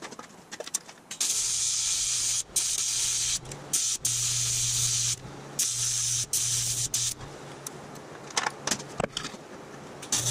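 TIG welding arc on a sheet-metal grille shell: a loud hiss with a low buzz under it. The arc strikes and stops repeatedly in bursts of about half a second to a second, then goes quiet for about three seconds, with a few small clicks, before striking again at the very end.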